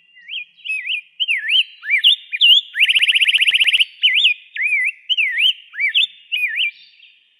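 Rose-breasted grosbeak singing: a warbling song of short, swooping whistled phrases that rise and fall, with a fast, even trill of notes near the middle.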